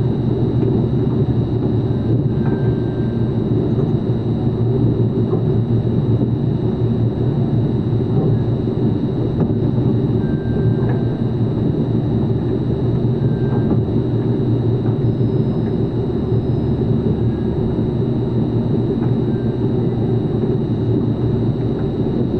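Steady, loud low rumble of running machinery with a faint steady high whine above it.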